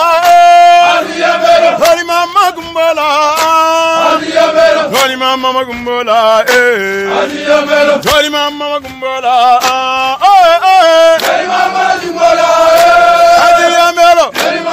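Men's voices chanting a soldiers' marching song, with long held notes that bend up and down. A few sharp beats fall among the singing.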